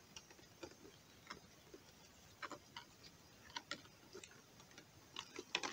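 Faint, irregular clicks and light taps, a few a second, as live crayfish are picked out of a mesh crayfish trap by hand.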